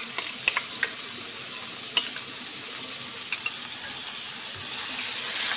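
Onions and tomatoes sizzling in hot oil in a kadhai, with a few sharp clicks of a spoon or spatula in the first couple of seconds and once more a little past the middle.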